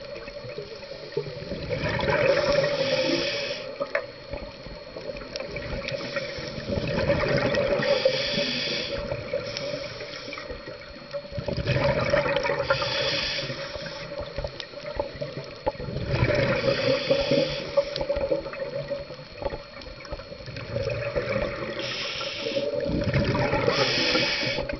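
Scuba diver breathing through a regulator underwater: regular breaths, each a hiss and a rush of exhaled bubbles, about five of them, one every five seconds or so.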